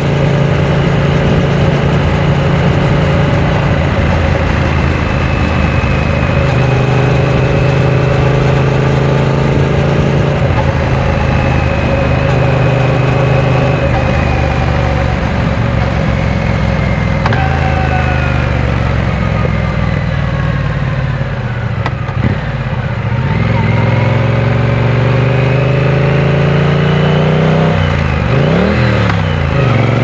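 Triumph Speed Twin 900's 900 cc parallel-twin engine on the move, heard from the rider's seat: a steady cruising note for the first half, easing off with the pitch falling past the middle, then climbing as it accelerates again, with a quick dip and rise near the end as it shifts gear.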